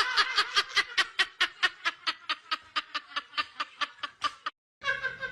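A voice making a rapid run of short repeated sounds, about five a second, slowing a little, that cuts off suddenly near the end.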